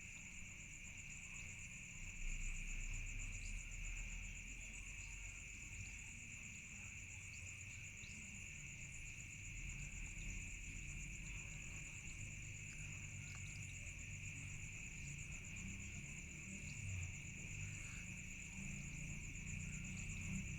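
A steady, high-pitched insect chorus at two pitches, one finely pulsing, over a low rumble.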